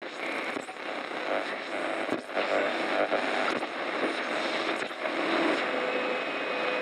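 A dense, steady rushing noise with a few sharp crackles, played as a show-intro sound effect over the title card.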